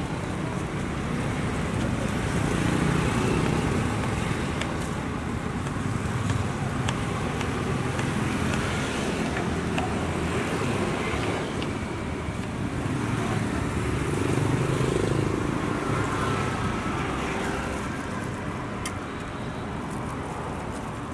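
Steady street traffic noise with vehicles passing, and a few faint clicks of a knife slicing fruit on a wooden cutting board.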